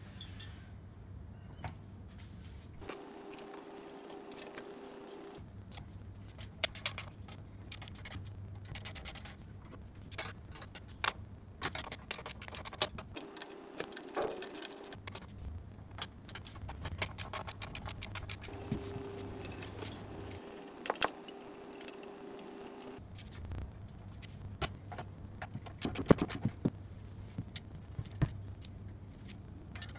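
Metal clinks, knocks and scrapes as a steel cylinder-mower frame is handled and the nuts and bolts on its side plate are undone with hand tools. Many sharp clicks come irregularly throughout.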